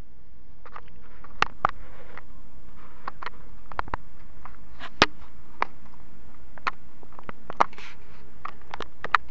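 Scattered sharp clicks and ticks, about one or two a second, over a steady low hum. A faint thin high whine starts about a second and a half in.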